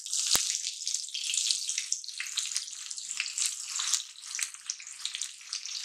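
Chopped onions hitting hot oil in an iron tawa, the oil sizzling and crackling as they go in, with one sharp click near the start.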